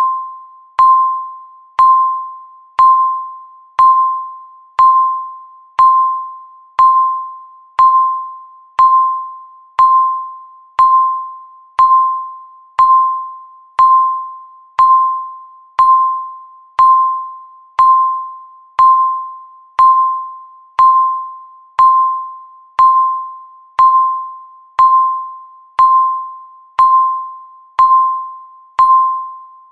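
Countdown timer beeping once a second: a single short electronic beep, each starting sharply and dying away before the next.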